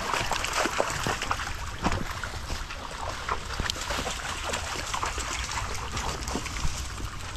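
Dogs splashing and lapping at water, with irregular sloshing and trickling.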